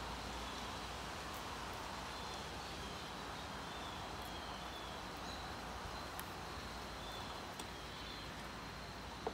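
Steady outdoor background noise with a faint high steady tone and repeated faint high chirps, plus a few light clicks.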